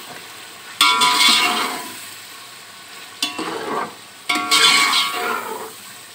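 Metal ladle stirring and scraping a metal pot of beef and yogurt being fried in oil (bhuna), over a sizzle. Three strokes ring briefly off the pot: about a second in, just after three seconds, and just after four.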